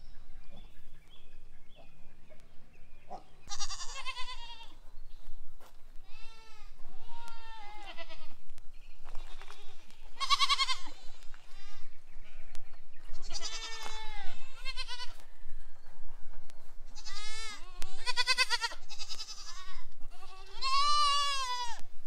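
Goats bleating over and over, about ten wavering calls, the loudest about halfway through and near the end.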